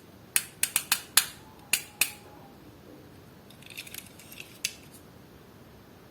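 Sharp plastic clicks and snips from opening diecast toy-car blister packaging: seven quick ones in the first two seconds, then a patch of softer crinkling ticks about four seconds in.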